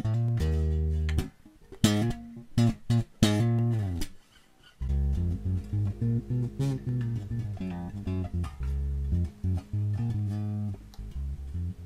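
Harley Benton PB Shorty short-scale bass with a passive precision pickup, played clean straight into a mixer. Held low notes, then short separate plucked notes with gaps between them from about a second in, then a steady run of notes from about five seconds on.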